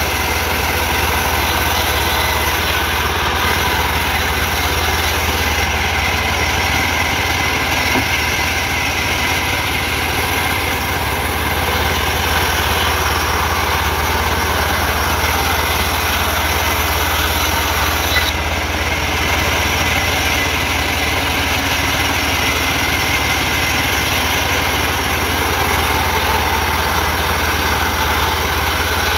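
A log sawmill running: a steady, continuous machine drone from the saw and its drive, with a strong low hum and no break or change in pace.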